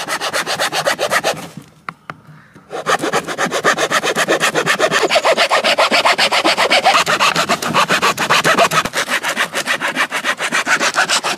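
A hand-held saw blade sawing through the thick paper casing of an aerial firework shell in quick back-and-forth strokes. The strokes stop briefly about a second and a half in, then go on steadily.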